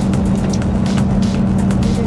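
Background music with a quick beat, over the steady low drone of the fishing boat's engine.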